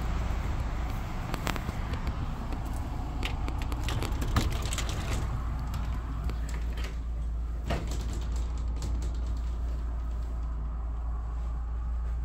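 Aluminium screen door being opened and stepped through, giving a few sharp clicks and knocks over a steady low rumble.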